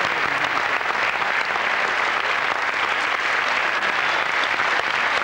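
Steady, sustained applause from an audience, with the dancers on stage clapping along.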